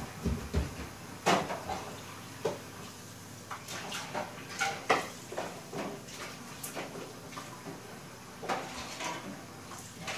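Scattered light knocks, clicks and clatter of household objects being moved about, a dozen or so irregular strikes.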